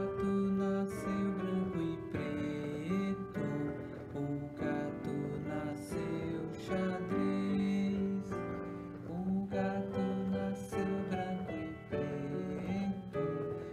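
A man singing a children's song to a strummed acoustic guitar accompaniment.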